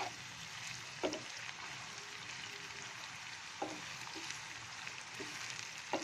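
Sliced onions frying in hot oil in a nonstick pan, a steady sizzle, while a wooden spatula stirs them and knocks or scrapes against the pan several times.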